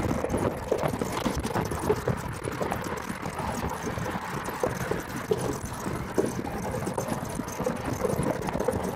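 Golf cart rattling and clattering as it rolls over rough gravel ground: a dense, irregular run of knocks and jolts.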